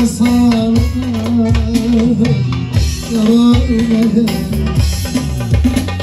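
Man singing a Turkish folk song in long, wavering held notes, accompanied by a strummed bağlama (long-necked saz) and a steady drum beat.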